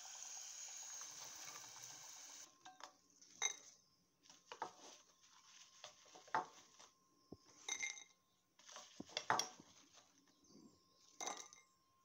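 Banana pieces frying in hot oil with a steady sizzle, which cuts off about two and a half seconds in. Then come a series of sharp clinks and clattering as a metal skimmer knocks against the pot and a plate while the fried pieces are lifted out and served.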